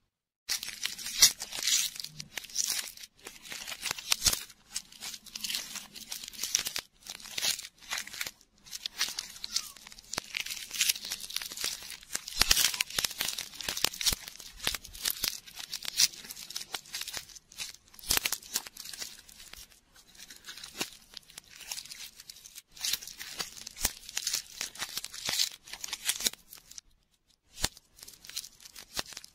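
Close-up crinkling and tearing of a shiny foil lollipop wrapper as fingers peel it off, a dense run of sharp crackles and rustles with short pauses and a brief lull near the end.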